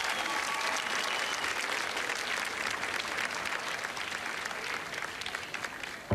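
Large theatre audience applauding, the clapping slowly dying down toward the end.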